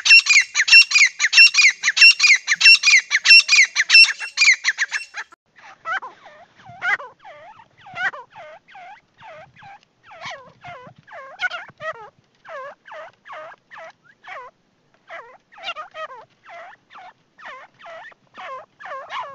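Grey francolin calling. The first five seconds or so are a loud, rapid series of harsh repeated notes. After that comes a quieter run of short notes at about three a second, each dipping and rising in pitch.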